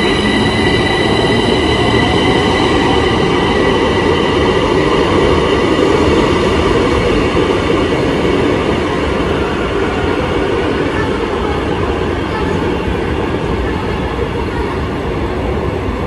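Bombardier metro train running through the station with a dense, steady rumble. A high wheel squeal fades out in the first second or two, and the rumble slowly grows quieter over the second half.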